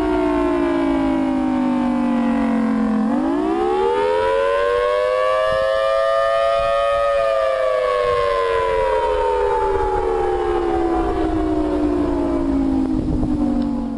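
Civil defense warning siren in a slow wail. Its pitch falls, sweeps up again about three seconds in to a peak near seven seconds, then falls slowly for the rest of the time.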